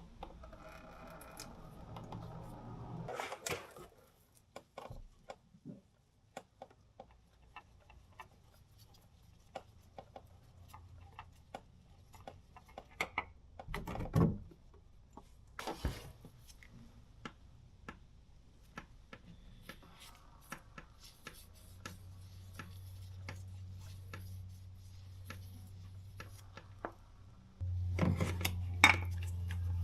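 Scattered clicks, taps and rubbing of tools and parts being handled, with one louder knock midway. A steady low hum comes in later and grows markedly louder near the end.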